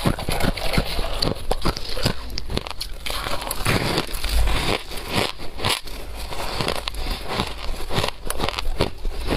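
Crushed ice being bitten and chewed, a fast, uneven run of crisp crunches and crackles, picked up close by a clip-on microphone. Gloved fingers digging through loose ice in the freezer add a crinkling rustle.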